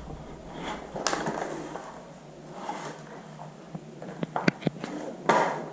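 Hands handling a plastic metal detector and its packaging: soft rustling and scraping with several sharp clicks, a quick run of them about four seconds in.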